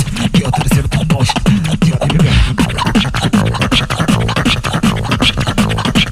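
Tag-team beatbox routine: two beatboxers layering a pitched vocal bassline under rapid clicking snares and hi-hats in a steady groove.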